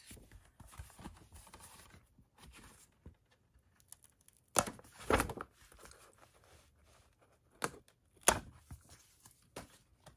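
A cardboard J-slip being slid off a metal steelbook Blu-ray case, making papery scraping and rustling. A few louder knocks and scrapes come as the case is handled, about halfway through and again near the end.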